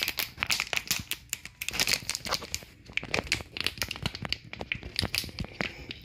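Packaging crinkling and tearing in quick, irregular crackles as a small part is taken out of its pack.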